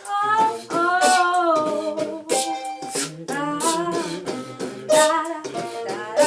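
Music: a sung melodic vocal line over a plucked-string accompaniment, with no rapped words.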